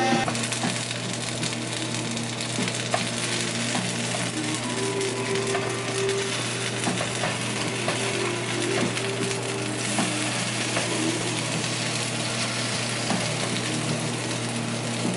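Breaded mushroom patties frying in shallow oil in a nonstick skillet, a steady sizzle over a low hum. Light clicks and scrapes of a metal spatula against the pan come and go as a patty is turned.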